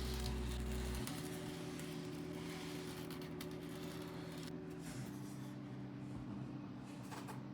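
Faint background music of held chords that change about a second in and again around five seconds, with a light scratchy hiss over it.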